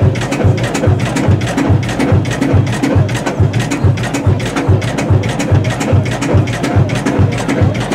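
Music with a steady, quick percussive beat: regular low thumps under sharp clicks.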